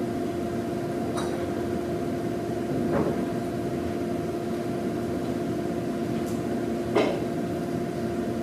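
A steady machine hum with two constant tones, broken by a few short knocks: one about a second in, one at three seconds, and a louder one near seven seconds.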